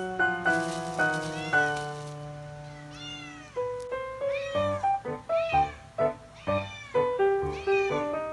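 Background music with a steady beat, with a domestic cat meowing repeatedly over it.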